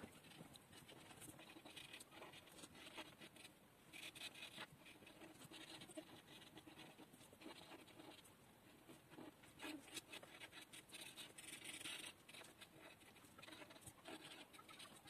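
Faint, irregular scratching of a felt-tip permanent marker drawn across paper in short strokes.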